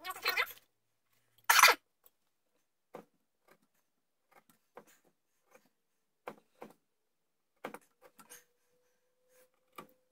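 A small chisel cutting into a wooden gun stock: two louder scraping strokes in the first two seconds, then short, scattered scrapes and taps as the notch is cut.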